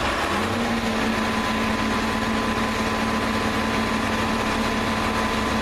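1982 John Deere 4640 tractor's six-cylinder diesel engine running steadily at idle, a low rumble with a steady whine over it.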